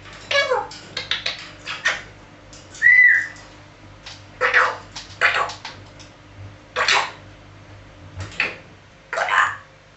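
African grey parrot making a string of short noisy sounds, with one short rising-and-falling whistle about three seconds in.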